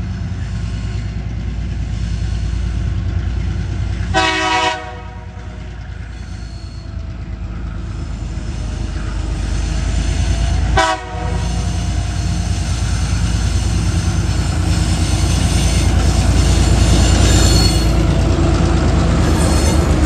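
TasRail diesel locomotives TR08 and 2001 hauling a log train towards a level crossing, their engines rumbling steadily and growing louder as they come close. The horn sounds twice: a blast of about half a second four seconds in, and a shorter toot about eleven seconds in.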